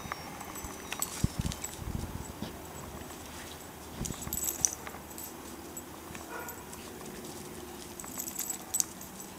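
Scattered crunching steps and light clicks on a sandy trail strewn with dry leaves and pine needles, in short clusters about a second in, around four seconds in and around eight seconds in.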